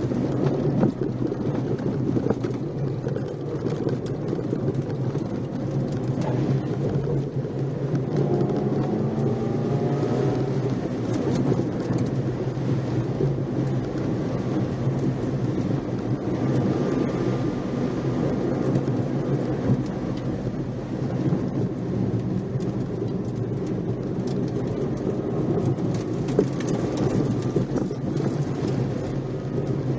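Nissan March 12SR's 1.2-litre four-cylinder engine running, heard from inside the car under a steady rumble of tyre and road noise, with the engine note rising as it revs about eight seconds in.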